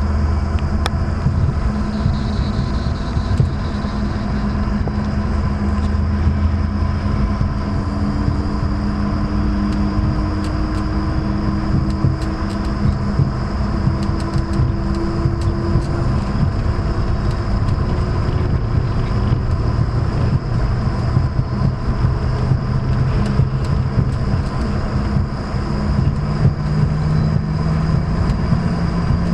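Jet airliner engines heard from inside the cabin while taxiing: a steady rumble and whine, with a couple of engine tones rising slowly as power changes.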